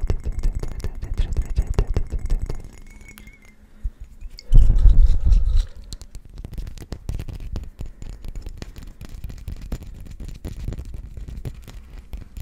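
Fingertips and nails tapping and handling a small glass bottle partly filled with liquid, close to the microphone. A quick run of light taps is followed by a short pause, then a brief loud low thump about four and a half seconds in, then lighter scattered tapping.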